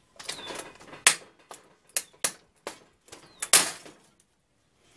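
Toaster's outer casing being worked loose and lifted off its inner frame, clattering and knocking: a run of sharp clacks with some scraping between them, the loudest about three and a half seconds in.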